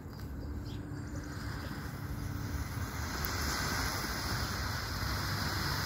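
Homemade smoke grenade going off: a hiss that swells from about halfway in as smoke starts blowing out both sides of its T-shaped top.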